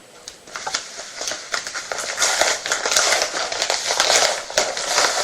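Packaging envelope crinkling and rustling as it is handled, a crackly run of small clicks that gets louder about two seconds in.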